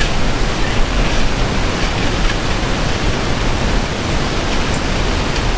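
Steady, loud rushing noise with no pitch and no breaks.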